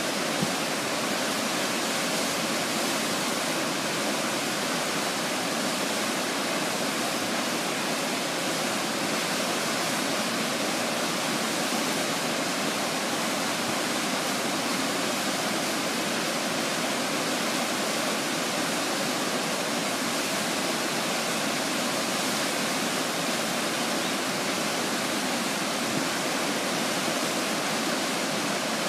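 Shell Falls, the waterfall on Shell Creek, in heavy flow: a steady, even rush of falling water.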